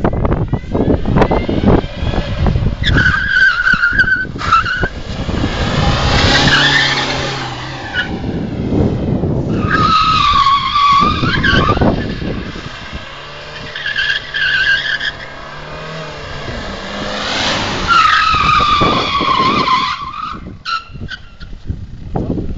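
Opel Vectra driven hard, its tyres squealing in about five long screeches over the rumble of the car.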